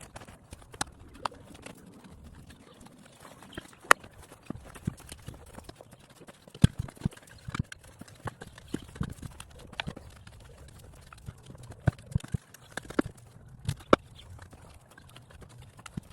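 Irregular sharp knocks and scrapes of a shovel and hand tools digging out an old sprinkler valve box, the strikes coming every half second to couple of seconds, a few of them much louder than the rest.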